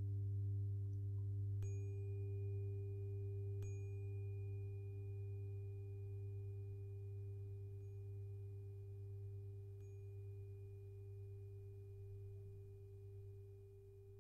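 A 396 Hz tuning fork struck twice, about two seconds apart, ringing on in a long, slowly fading pure tone over a steady low drone.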